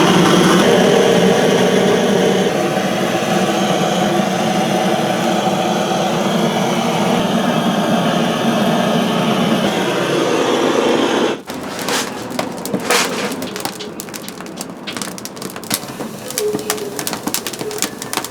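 A steady, loud mechanical hum that cuts off abruptly about eleven seconds in, followed by the irregular crackling and popping of an oak-wood fire.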